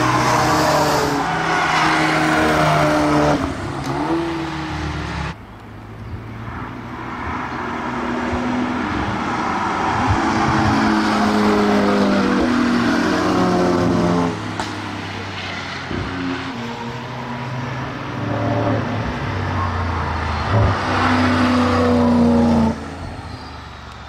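Cars driving past one after another, among them a VW Golf and a Porsche 911 GT2 RS, engines accelerating with their pitch climbing and stepping down through gear changes. The sound switches abruptly from one car to the next about five seconds in and again near the end.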